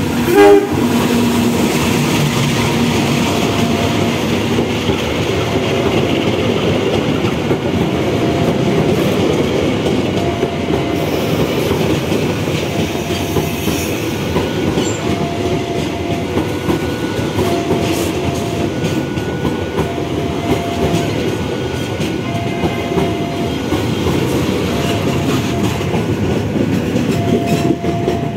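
A diesel-electric locomotive gives a short horn blast as it passes, then a long train of parcel wagons rolls by with steady wheel clatter over the rail joints. A faint warning tone beeps on and off about every second and a half.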